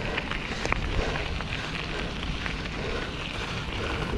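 Wind buffeting the microphone over the rumble of a mountain bike rolling over a rough dirt trail, with scattered clicks and rattles from the tyres and bike throughout.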